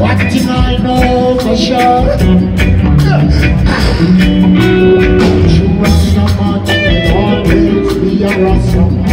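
Live reggae band playing: a heavy bass line under drum kit strokes in an even rhythm, with held horn-section lines over the top.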